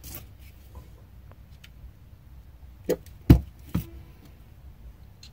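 Tools and drill parts being handled on a work surface: a few faint clicks, then three sharp knocks about half a second apart a little after the middle, the second the loudest.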